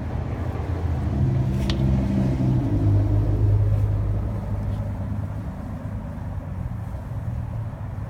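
A vehicle engine running close by: a low, steady hum that drops in pitch about three seconds in and then slowly fades. There is a single light click a little under two seconds in.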